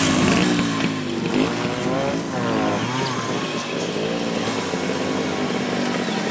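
Two-stroke motorcycle engines running: a Simson moped and a Jawa motorcycle. Their pitch rises and falls between about one and four seconds in, then settles into a steadier run as the Jawa rides up at low speed.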